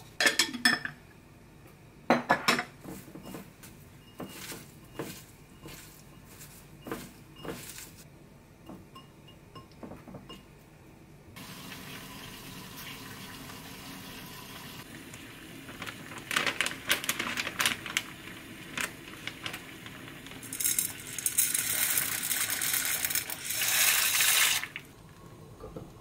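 Kitchen prep sounds: a wooden spoon clinking and tapping against a glass salt jar and a glass bowl, a run of sharp clinks and knocks. A steady hiss then sets in with more clatter of dishes, and near the end comes several seconds of louder running water.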